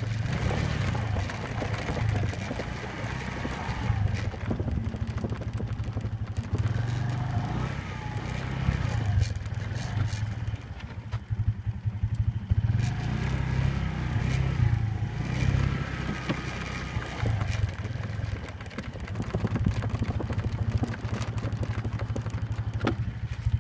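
Wind buffeting the microphone in an uneven low rumble, with the crunch and scuff of footsteps on a dry, leaf-strewn dirt trail.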